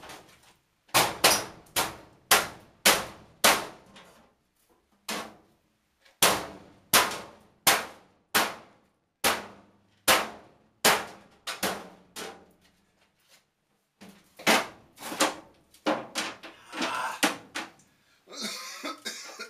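Hammer blows on an old furnace's sheet metal as it is knocked apart: about two dozen sharp clanging strikes in quick runs with short pauses, then a longer clattering noise near the end.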